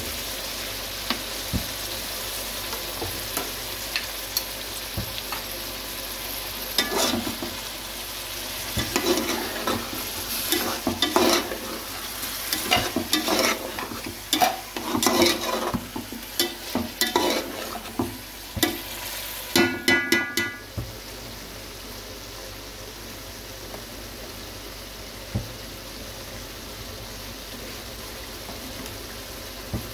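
Food sizzling in a hot pan while a spatula stirs and scrapes it, with a run of clattering strikes of metal on the pan in the middle stretch. The frying settles to a quieter steady sizzle near the end, after a short tonal sound.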